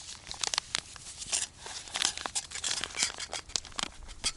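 Crinkling and rustling of something being handled, with many irregular sharp crackles.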